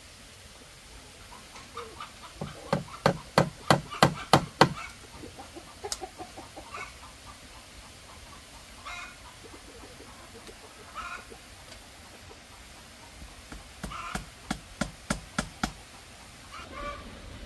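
Chickens clucking, with two quick runs of sharp knocks, about three a second, one a few seconds in and another near the end. The knocks are the loudest sound.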